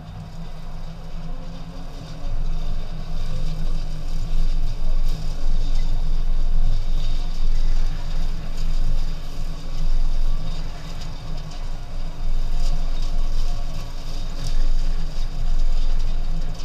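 Low, steady rumble of a vehicle driving over a rough dirt track, growing louder about two seconds in.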